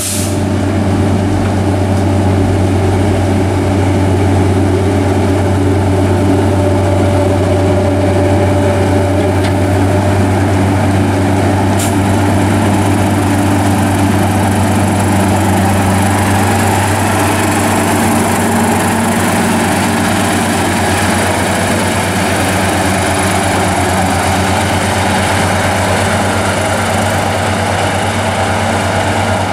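Diesel engine of a Fortschritt E 281 C self-propelled forage harvester running steadily as the machine drives on the road, a constant low drone with no change in speed.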